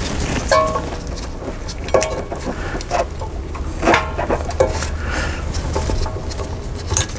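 Steel-backed brake pad clinking and scraping against the rear caliper carrier and its slider clips as it is worked into place, a scattering of short metallic clicks, a few of them ringing briefly, over a low steady rumble.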